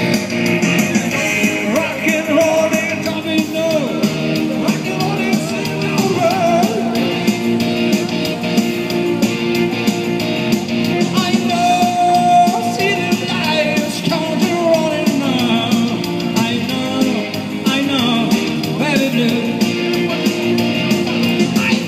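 A man singing a rock song into a microphone over a Korg electronic keyboard accompaniment, both amplified through a portable loudspeaker.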